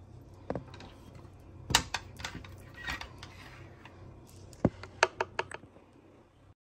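Scattered light clicks and taps of hard objects being handled at a wooden table, with a quick run of four near the end, then the sound cuts off abruptly.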